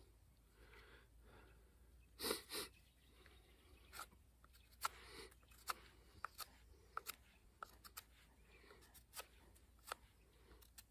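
Knife whittling a small piece of wood: short, quiet scraping cuts and sharp clicks, irregularly spaced, with a louder double rasp about two seconds in.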